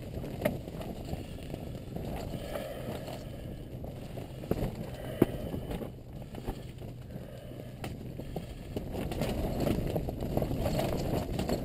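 Hands unhooking a white bass from a jig: rustling of sleeves and handling, with scattered small clicks and one sharper click about five seconds in, over a steady low rumble.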